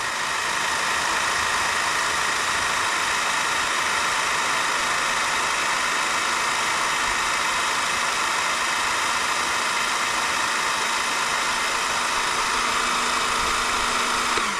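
12V electric motor and pump of an electric hydraulic car floor jack running steadily under power, cutting off right at the end.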